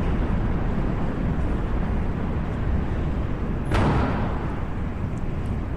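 Delta IV Heavy's three RS-68 rocket engines firing in flight: a steady, deep rumbling noise, with one brief louder crackle a little under four seconds in.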